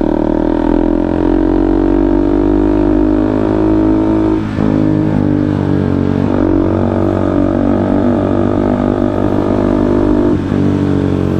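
KTM Duke 200's single-cylinder engine and exhaust running under way at a fairly steady note. The note dips briefly twice, about four and a half and ten seconds in.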